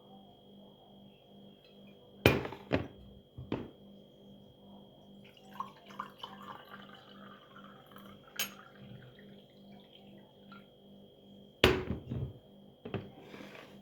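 Cups and dishes clinking and knocking as they are set down and handled, about six sharp knocks spread out, with a little water running in between. Faint music plays underneath.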